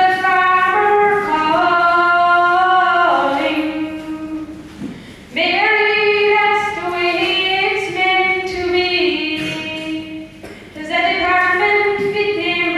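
A boy singing solo and unaccompanied into a microphone, holding long notes in phrases and breaking off twice for a breath.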